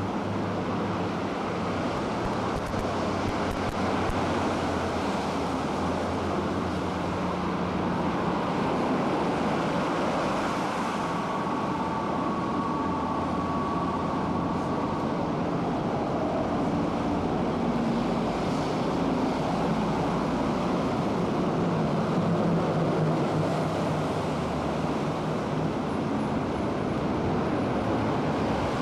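Steady rumble of road traffic, with faint passing engine tones now and then.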